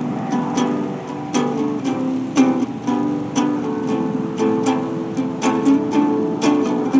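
Small-bodied acoustic guitar strummed in a steady rhythm, about two strokes a second, with the chords ringing between strokes.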